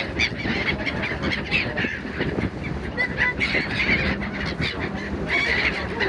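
A flock of gulls calling over and over, short harsh cries overlapping one another throughout, over a low steady rumble.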